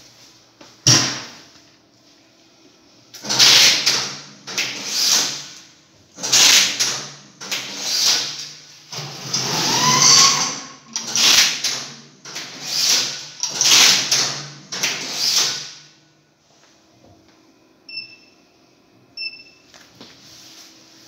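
Automatic strapping machine running a series of strapping cycles: about ten short bursts of strap feeding, tensioning and sealing, each under a second and roughly one every second and a half, one with a rising whine near the middle. Later, two short electronic beeps from the machine's touchscreen control panel.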